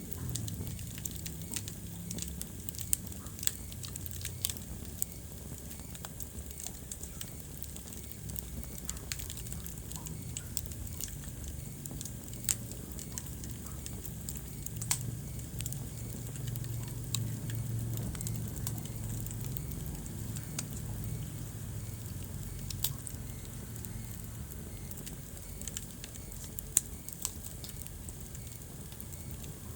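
Wood fire burning in a fireplace: a steady low rumble of flames with frequent small crackles and a few sharp, louder pops scattered through.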